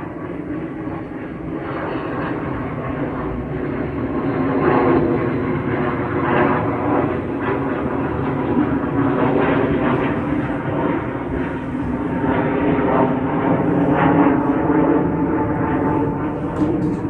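Pilatus PC-12 single-engine turboprop taking off, its propeller and engine drone growing louder over the first four or five seconds and then holding steady.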